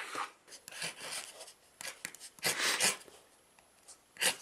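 Short rubbing and scraping sounds from a hand-made wooden pen and its metal kit parts being handled, in a few separate bursts, the longest about two and a half seconds in.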